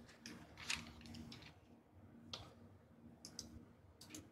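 Faint, scattered clicks and taps, about a dozen at uneven spacing, over a faint low steady hum.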